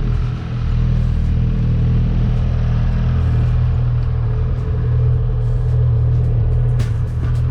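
Steady low drone of a running engine, holding an even pitch, with a few light clicks near the end.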